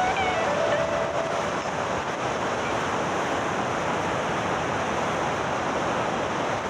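Ocean surf: waves breaking and washing in a steady rush of water noise.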